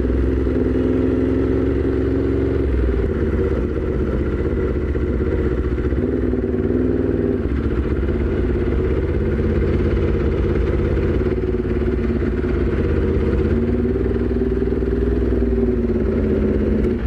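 Aprilia RSV4 Factory's V4 engine, fitted with an SC-Project CRT exhaust, running steadily at low revs, with small changes in revs a few seconds in.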